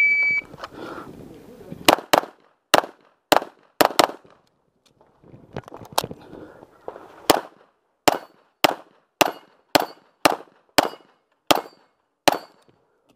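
A shot timer's start beep, then a stage of semi-automatic pistol fire: about twenty shots in quick strings over some ten seconds, broken by a few short pauses.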